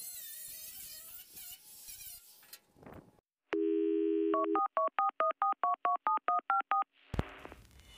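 A cordless angle grinder works on sheet metal for the first two seconds, its pitch wavering under load. About halfway through, a telephone dial tone comes in, followed by a quick run of about a dozen touch-tone keypad beeps and a sharp click.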